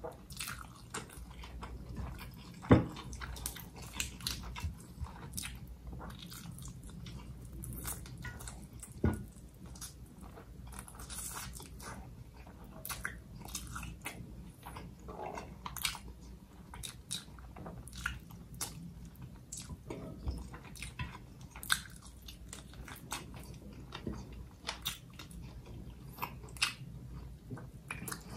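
A person eating nasi ambeng close to the microphone: steady chewing and biting with frequent short, crisp crunches and clicks. Two louder knocks stand out, about three seconds in and again about nine seconds in.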